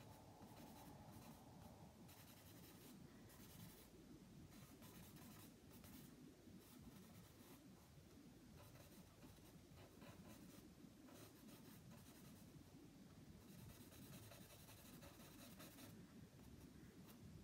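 Faint scratching of a stick of willow charcoal drawn across cartridge paper, in irregular stretches of strokes.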